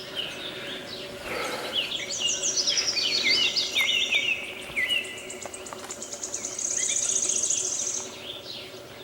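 Several wild birds chirping and calling together, with overlapping quick, high chirps and short glides. About six and a half seconds in, a fast, high trill runs for about a second and a half. A faint, steady low drone sits underneath.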